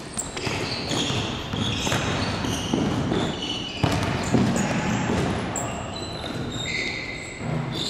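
Basketball bouncing on a hardwood gym floor during dribbling, with sneakers squeaking on the court as the player moves, about a dozen short squeaks in all.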